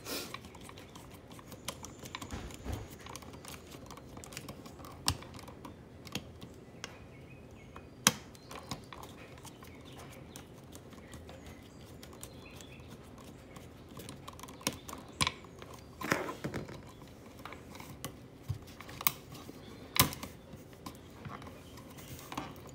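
Scattered small clicks and taps of a screwdriver working a wall receptacle's terminal screws while its wires are handled, with a handful of sharper clicks spread through.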